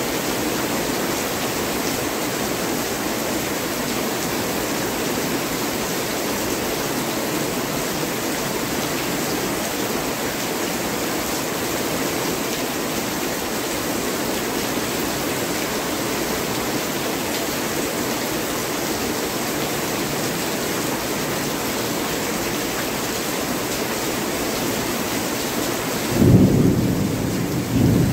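Heavy rain pouring steadily. About 26 seconds in, a loud low thunder rumble breaks in, swelling twice.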